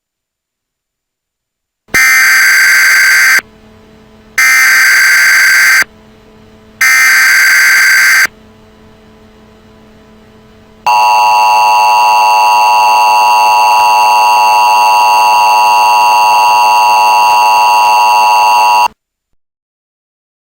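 Emergency Alert System tones. First come three identical screeching bursts of the digital SAME header, each about a second and a half long with a short gap between them. After a brief pause comes the steady two-tone attention signal, held for about eight seconds and then cut off abruptly. This sequence marks the start of an emergency alert broadcast.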